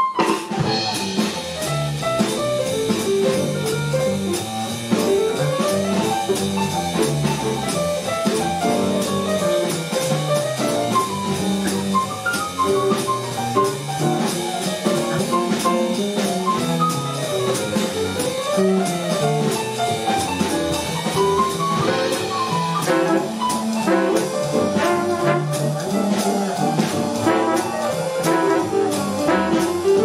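Live jazz octet playing: tenor and baritone saxophones, trumpet, trombone, guitar, piano, double bass and drum kit. The full band comes in loudly together at the very start, with the horns carrying moving melodic lines over a steady beat.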